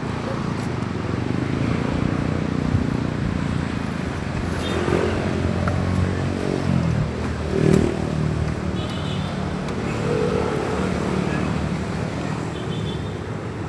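Roadside traffic: motor vehicle engines running past on the road, swelling loudest as one passes about eight seconds in.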